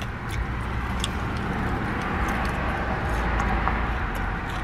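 Steady low rumble and hum inside a parked car, like a running engine and ventilation, with a few faint clicks of fingers handling the sandwich filling.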